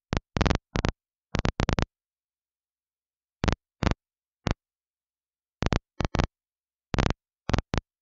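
Airband radio receiver on the 131.500 MHz control frequency, its squelch opening in about fifteen brief bursts with dead silence between. Each burst is a click or a chopped scrap of transmission, not intelligible words.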